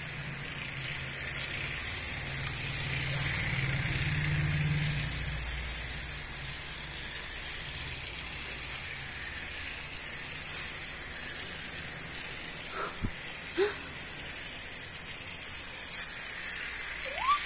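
Battery-powered toy train and toy car running on their plastic tracks: a steady motor whir with hiss, a little louder a few seconds in. A few faint, short rising squeaks come about thirteen seconds in.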